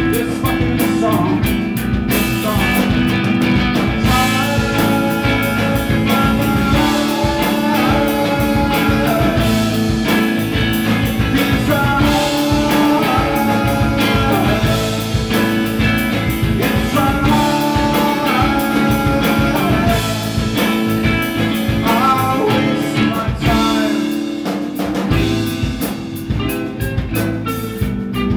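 Live rock band playing: electric guitar, bass guitar and drum kit, with a man singing over them.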